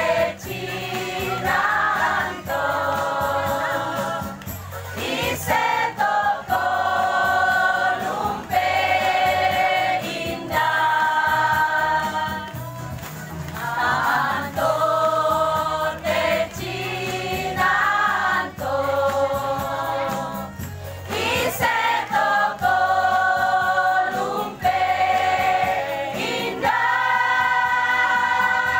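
A choir of mostly women's voices singing together in phrases of held notes, each note lasting one to two seconds, with short breaths between phrases.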